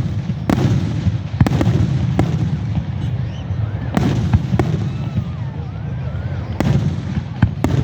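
Fireworks exploding: about seven sharp, irregularly spaced bangs over a continuous low rumble of further bursts and crackle.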